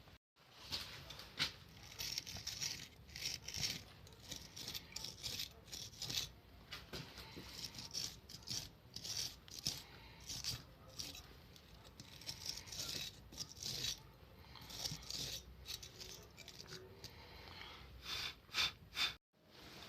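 Irregular metallic clinks, rattles and short scrapes of hand work on the parts of an old hand-cranked grinder, dozens of small strokes at an uneven pace.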